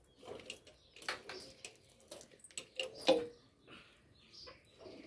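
Cow being milked by hand into a steel bucket: irregular short hissing squirts of milk into the froth, with a louder knock about three seconds in.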